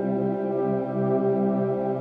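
Background music: slow ambient music of long-held tones.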